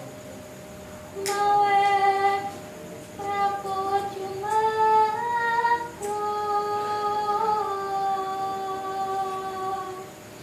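A woman's voice singing slow, long held notes in four phrases, the third stepping slightly upward and the last held for about four seconds before fading near the end.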